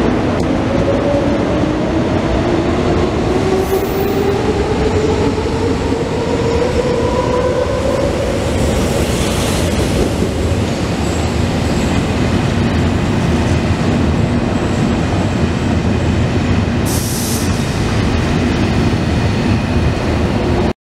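Electric trains running past close by: a red S-Bahn multiple unit's traction motors whine, rising in pitch over the first eight seconds as it gathers speed, over a steady rolling rumble of wheels on rail. A brief high squeal comes near the end.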